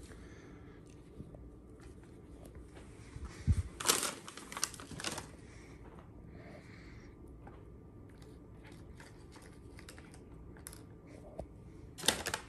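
Paper chips bag crinkling and rustling in short bursts while a cat handles it with its head, about four seconds in and again near the end, with small paper ticks in between and a dull bump just before the first burst.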